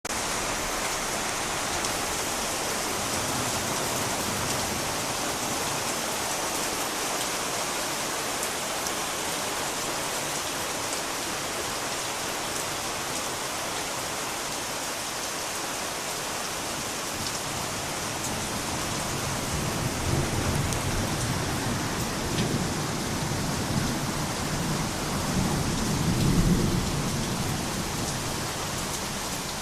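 Thunderstorm: steady rain throughout, with rolling thunder rumbling in the second half and growing loudest near the end.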